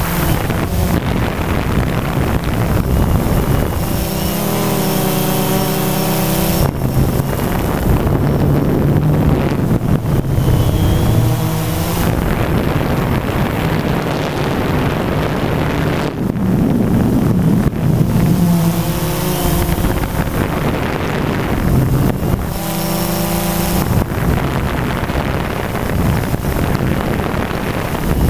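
DJI Phantom quadcopter's motors and propellers buzzing steadily close to the mounted camera, the pitch shifting several times. Wind buffets the microphone throughout.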